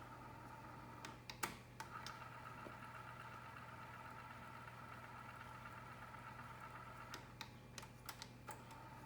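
Light clicks and taps in two short clusters, about a second in and again near the end, over a faint steady electrical hum.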